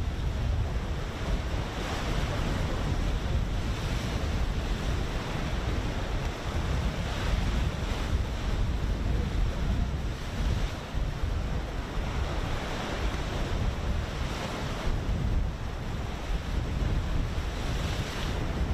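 Wind buffeting the microphone over the wash of a choppy sea: a steady rush that swells every few seconds.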